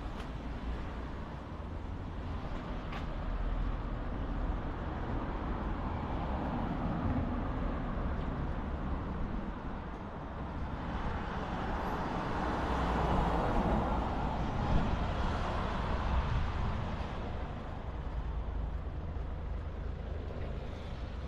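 Road traffic on a town street: cars driving past, with one vehicle passing close and loudest in the middle, its noise swelling and then fading over about five seconds.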